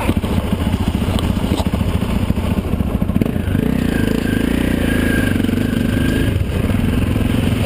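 An off-road motorcycle's engine running as the bike is ridden over a rough, muddy track, heard from the rider's helmet. The engine note is uneven at first, then settles into a steadier note about three and a half seconds in.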